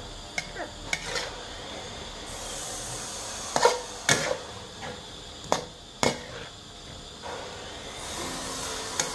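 Metal spatula scraping and clanking against a steel wok as pumpkin leaves and beef slices are tossed in a stir-fry, a dozen or so sharp strikes at irregular intervals, the loudest around four seconds in, with a faint sizzle between them.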